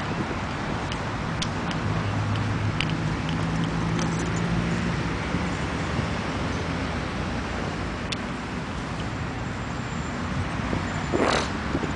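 Steady road traffic noise, with the low hum of a vehicle's engine for a few seconds early on; a brief loud rush of noise about a second before the end.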